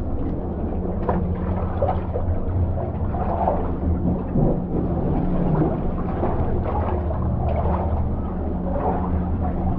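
Fishing boat's engine running steadily, with irregular splashing of water and a few knocks over it.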